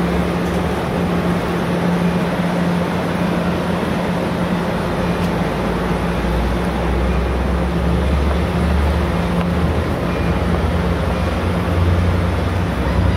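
Amtrak bi-level passenger train pulling out and rolling past: a steady rumble of wheels on rail under a low, even drone, the rumble growing heavier as the train picks up speed.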